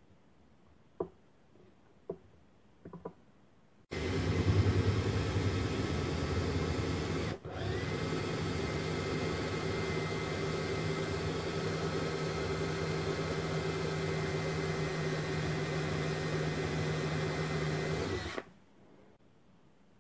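A few light taps, then a cordless drill starts about four seconds in and runs steadily for some fourteen seconds, boring into an aluminium heatsink block. It stops briefly about seven seconds in, then carries on and cuts off suddenly near the end.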